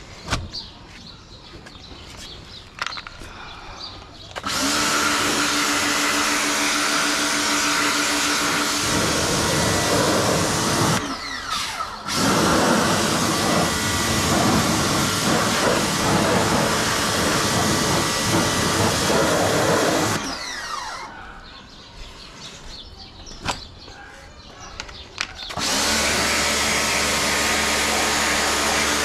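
Ingco 1400W electric pressure washer running in bursts as the trigger is pulled: a steady motor hum under the hiss of the water jet spraying a steel wheel and a plastic hubcap. It starts about four seconds in and breaks briefly around eleven seconds. It stops about twenty seconds in and starts again some five seconds later.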